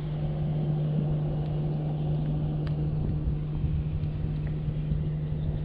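Steady low hum of a motor running on the bass boat, with wind rumbling on the microphone and a few faint clicks.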